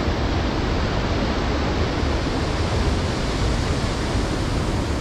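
Fast-flowing mountain stream rushing steadily: a dense, even wash of water noise with a strong low rumble.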